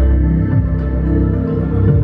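Live blues-rock band playing, heard close to the stage with the electric bass loudest: sustained low notes under guitar, the bass sliding in pitch a couple of times.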